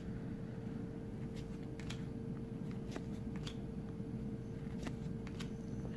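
Faint soft clicks and slides of trading cards being moved one at a time from the front of a hand-held stack to the back, over a steady low hum.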